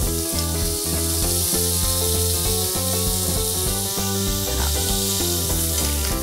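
Bacon pieces frying in hot palm oil in a stainless steel pan, a steady sizzle, with background music playing under it.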